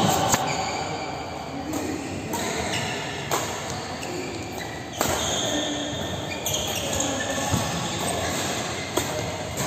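Badminton rally: sharp hits of racket strings on the shuttlecock about every second or two, with short high squeaks of shoes on the court mat between them.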